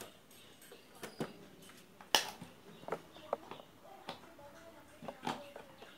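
Scattered light clicks and taps as a digital multimeter and its test probes are handled and set down, the sharpest about two seconds in, with faint short chirps in the background.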